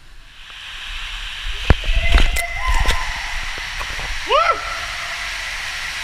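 Rushing water of a tube water slide, building up over the first second and then running steadily, with a cluster of sharp knocks and clatters about two to three seconds in. A short squeal that rises then falls comes about four seconds in.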